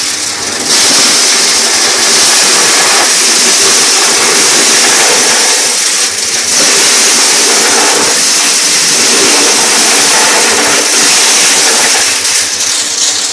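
Electric-motor-driven mini corn sheller (Maksindo PPJ-03) running loud and steady as corn cobs are fed through it, stripping the kernels off the cobs.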